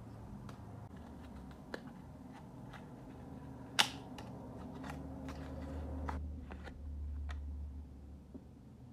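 Paper sticker sheets and a small cardboard box handled and opened by hand: light rustles and taps, one sharp click about four seconds in as the box lid is worked open, and a low rumble of handling noise in the second half.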